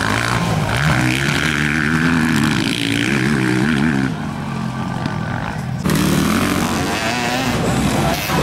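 Off-road motocross bikes racing, their engines revving up and down as riders accelerate and back off. The sound drops and then jumps back abruptly about four and six seconds in.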